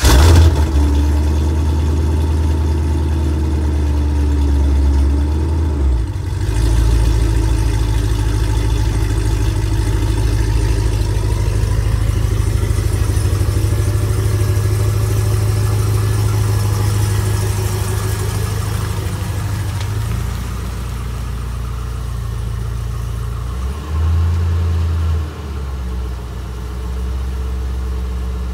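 C5 Corvette's 5.7-litre V8 cold-starting: it catches with a loud flare, then settles into a steady high idle. The idle note shifts a few times, with a brief rise about 24 seconds in.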